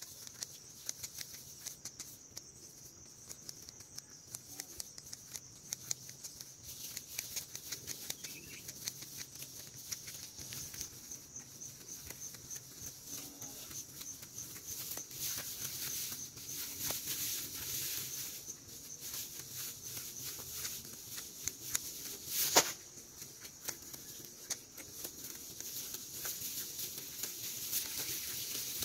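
Tall grass rustling and stems snapping in quick, irregular clicks as it is grabbed and gathered by hand, over a steady high-pitched drone. One sharp knock about two-thirds of the way through.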